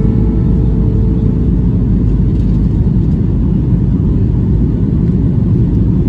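A steady, loud low rumble from a moving vehicle.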